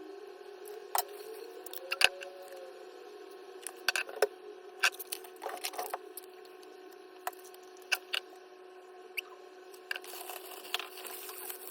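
Scattered sharp clicks and taps of kitchen handling over a steady hum.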